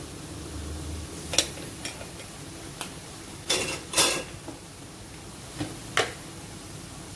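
Metal spoon and spatula clinking against a metal wok several times, the loudest knocks about halfway through and again near the end, over a low steady sizzle of gourd frying in the pan.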